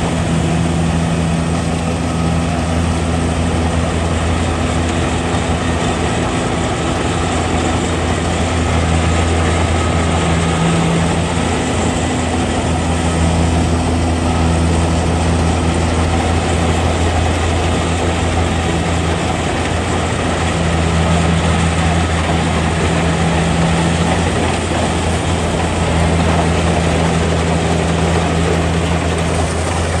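Kubota combine harvester's diesel engine running steadily while harvesting: a low, even engine drone with a broad mechanical clatter over it.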